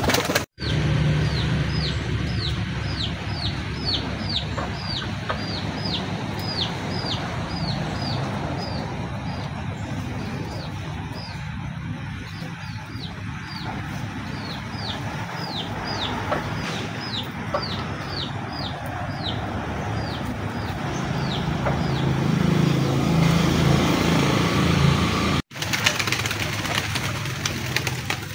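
Chick peeping: high, short, falling notes repeated about twice a second, with a pause around the middle, over a steady low background that grows louder near the end.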